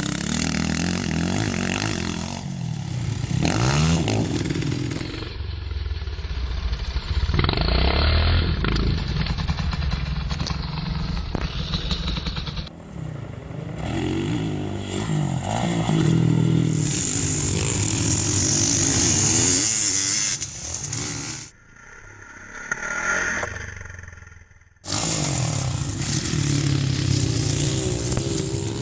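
Kawasaki KX450F motocross bike's single-cylinder four-stroke engine revving up and down repeatedly as it is ridden around a dirt track, with a short quieter stretch a little after two thirds of the way through.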